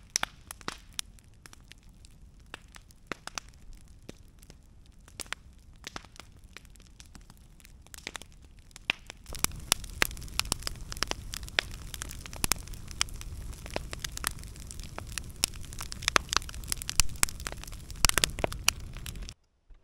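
Wood campfire crackling, with frequent sharp pops over a low rush of flames. About nine seconds in the fire gets louder, with a stronger rush and more frequent pops, then the sound cuts off suddenly just before the end.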